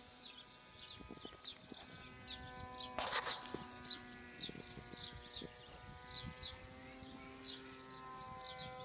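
Distant drone of the Versa Wing's electric motor and propeller in flight, a steady hum of several tones that shifts slightly in pitch with the throttle. High chirps repeat over it throughout, and a short noisy burst comes about three seconds in.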